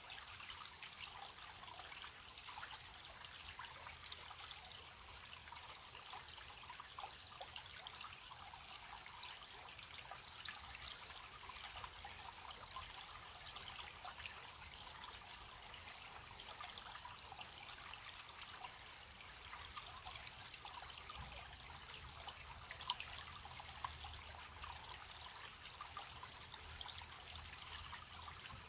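A gentle stream running steadily, with faint crickets chirping in a fast, even pulse.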